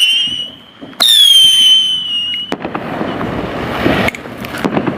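Consumer fireworks whistling: a loud, high whistle sliding slightly down in pitch ends just after the start, and a second one starts about a second in and lasts about a second and a half. After it comes a steady hissing crackle with a few sharp pops.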